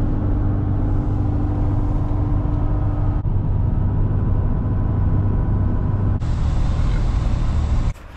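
Steady low rumble of road and engine noise inside the cab of a Ford pickup truck cruising on a highway. It drops off suddenly near the end.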